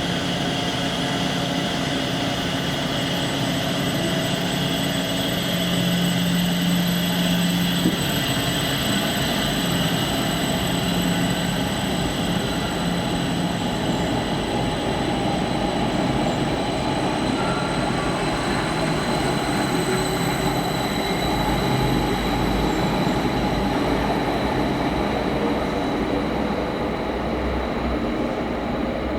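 Electric train running in the station: a steady rumble of wheels and running gear with several steady high whines from its electrical equipment, and a single click about eight seconds in.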